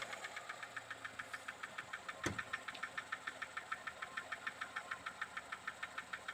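VAZ-2101 engine idling with a rapid, even ticking knock from under the valve cover, about seven ticks a second, that adjusting the valves has not cured. One louder click about two seconds in.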